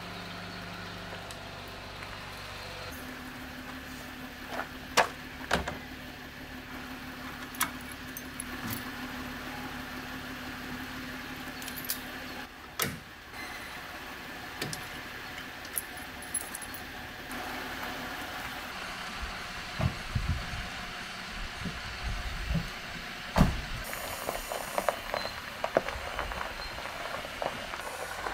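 Scattered clicks, clacks and knocks of plastic traction recovery boards being handled and clipped onto a truck's bed rack, over a steady outdoor hiss. A run of heavier low thumps comes about two-thirds of the way in.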